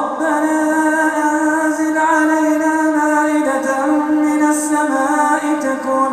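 Male Quran reciter's voice in melodic recitation (tajwid), drawing out one long melismatic held note. It glides up into the note at the start, holds with small ornamental turns, and steps down slightly about three and a half seconds in.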